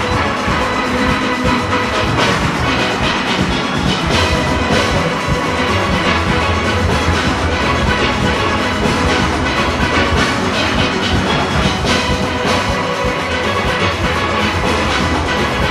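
Large steel orchestra playing live: many steelpans at once, from the small high pans to the big bass pans, sounding together in a continuous ensemble.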